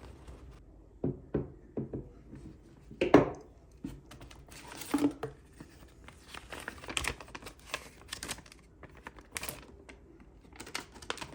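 Packaging being opened and handled by hand: crinkling and tearing, with a few sharp knocks, the loudest about three seconds in.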